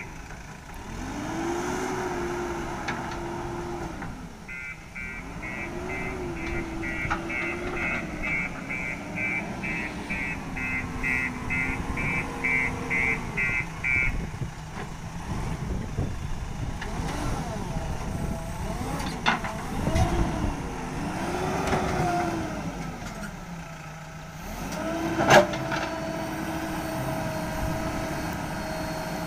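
JCB backhoe loader's diesel engine revving up and down again and again as it works its hydraulic arm, then settling to a steady run. A reversing alarm beeps about twice a second for several seconds early on, and a single loud metallic bang comes a little after the middle.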